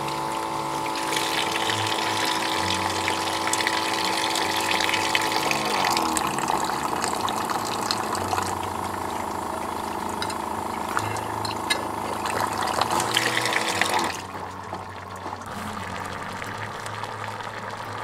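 Water running from a camper-van sink tap as dishes are rinsed under it, with the sink's small electric water pump humming steadily while the tap is open. The pump winds down and stops about six seconds in, runs again briefly near fourteen seconds, and the running water stops with it.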